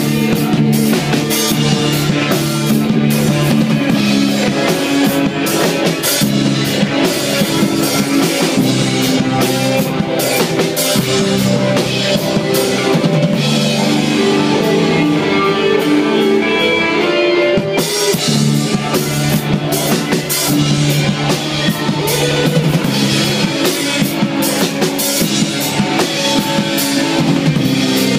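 Live rock band playing an instrumental passage: a drum kit with electric guitars through amplifiers. Just past the middle the drums thin out for a few seconds, then the full kit comes back in suddenly.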